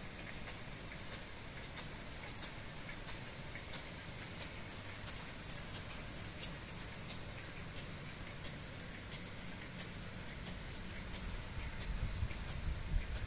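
Impact sprinklers watering a grass pitch: the swinging arm ticks steadily, about three clicks every two seconds, over the hiss of the water spray. A low rumble comes in near the end.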